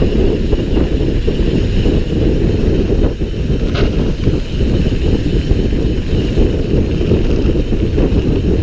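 Wind buffeting the microphone of a camera on a mountain bike at speed, with tyre noise from the paved road: a loud, steady, low rushing sound. A single sharp click comes about four seconds in.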